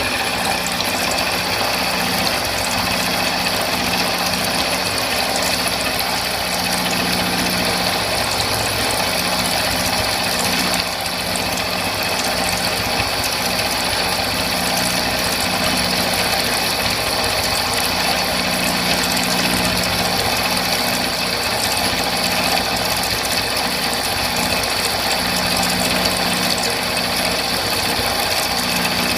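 Milling machine cutting steel with a 20 mm end mill at 900 rpm, taking a 5 mm deep cut at 40% width: a steady, continuous cutting noise over the spindle's hum, with a slight dip in level about eleven seconds in.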